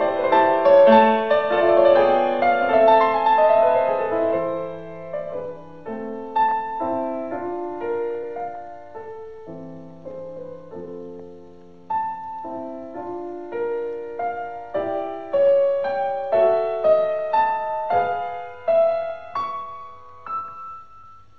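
Solo piano music: a slow, gentle melody of single notes and chords, thinning out and fading away near the end.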